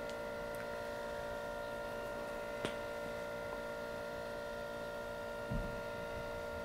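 Stepper motors of a Zen Toolworks 7x12 CNC machine under a TinyG controller, driving an axis slowly at 22 mm per minute, give a steady hum of several tones. A faint click comes about two and a half seconds in, and a soft low thump near the end.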